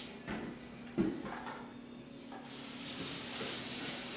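Paint roller on an extension pole rolling over wet wall paint with a steady hiss, on a smoothing pass over freshly applied paint. The hiss stops near the start, a short knock comes about a second in, and the hiss resumes about two and a half seconds in as the roller runs over the wall again.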